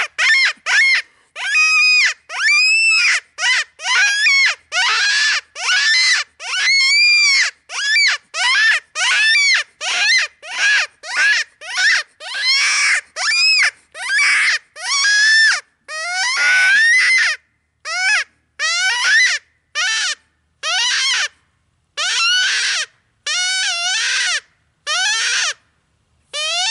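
Hand-blown predator mouth call sounding a string of short, wavering distress squeals, one to two a second, spaced out with longer pauses in the later half, to lure coyotes.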